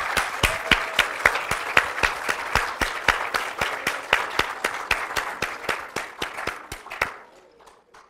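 Audience applauding, with one person's claps close to the microphone standing out as a steady run of loud strokes. The applause fades and dies away about seven seconds in.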